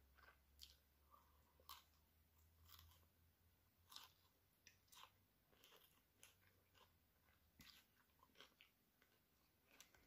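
A person chewing food, heard faintly as soft, irregular mouth clicks and small crunches.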